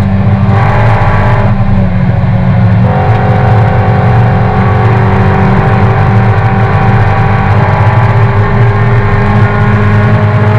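Race car engine heard loud from inside the cockpit, running hard at a steady pitch, with a brief change in note about a second in.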